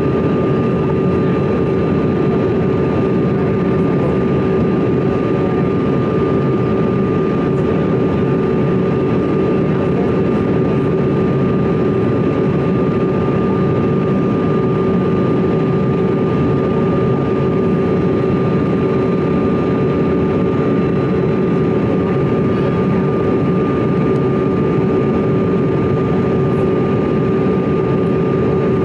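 Cabin noise inside a CRJ-200 regional jet on approach: a steady rush of airflow and engine sound with a constant whine from its two rear-mounted GE CF34 turbofans.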